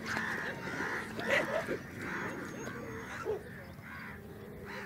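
A pack of feral dogs yelping and barking as they feed together on a carcass. The calls come thick in the first two seconds, then fewer and fainter.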